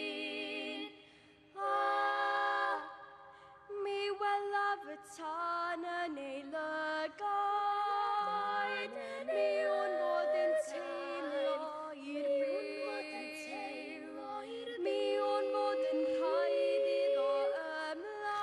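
Three girls' voices singing together in close harmony, unaccompanied, with a short break about a second in before the next phrase.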